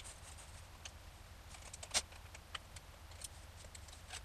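Scattered light clicks and taps of hands handling a hard drive in its metal mounting caddy, with one sharper click about two seconds in.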